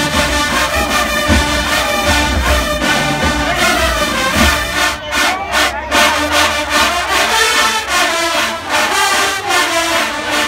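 A college marching band's brass section playing loud, full chords, led by trombones and trumpets. Sharp drum hits come in a steady beat through the second half. Crowd noise sits underneath.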